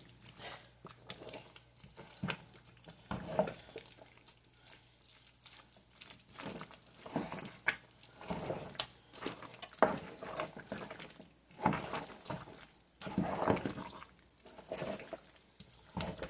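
Spoon stirring a thick peanut and bitter-leaf sauce in a pot, with wet stirring sounds in irregular strokes, as the bitter leaves are mixed in.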